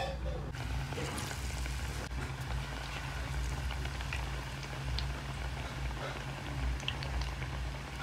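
Batter-coated bread slices deep-frying in hot oil in an iron kadai: a steady sizzle with scattered small pops and crackles, over a steady low hum.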